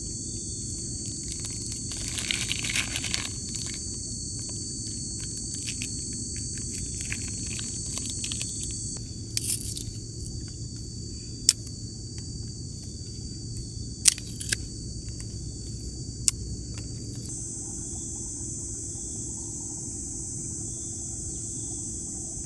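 A steady high insect drone that cuts off about nine seconds in and starts again near the end, over a low steady rumble. A few sharp clicks and knocks stand out in the middle.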